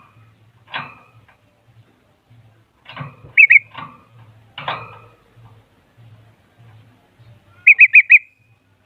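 A songbird sings: harsh, scratchy chattering calls mixed with short bursts of clear whistled notes, ending in a loud run of four whistles. This is lure song meant to set a caged bulbul singing.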